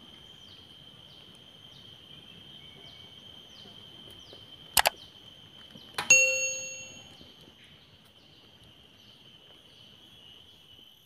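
A metal object is struck once about six seconds in and rings with a clear tone that fades over about a second, a second after a sharp double knock. Under it, insects keep up a steady high drone with a falling chirp repeating about twice a second.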